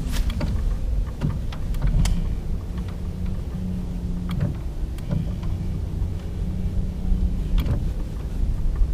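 A small boat motor humming steadily, its pitch shifting now and then, over a low rumble, with a few sharp clicks.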